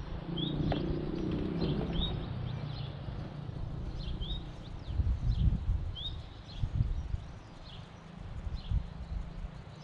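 A small bird chirping, short rising calls repeated about once a second, over gusty wind rumbling on the microphone.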